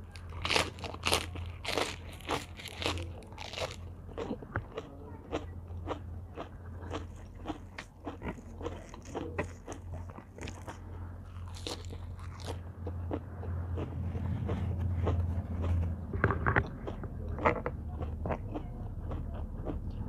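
Close-up eating sounds: crisp crunching as a fresh lettuce leaf is bitten and chewed, densest in the first few seconds, then softer chewing and mouth smacks of a wet, spicy seafood papaya salad. A steady low hum runs underneath.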